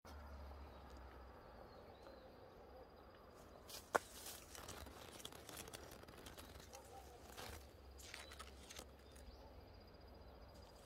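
Faint outdoor ambience under a low steady hum, with one sharp click about four seconds in and a few brief rustling noises.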